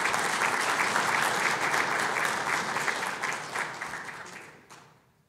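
Audience applauding: a dense patter of many hands clapping that dies away over the last couple of seconds.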